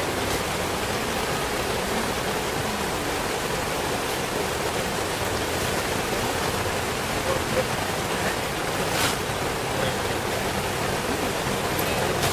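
Steady rush of the flooded Poudre River, swollen far beyond its banks, pouring fast across a paved path.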